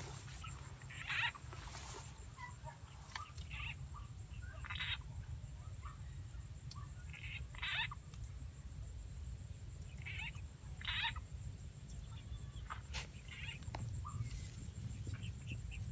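Frog calls: short croaks, often two close together, repeating every two to three seconds over a steady low rumble; these are frog-call sound effects played on a loop to lure field frogs, possibly answered by live frogs.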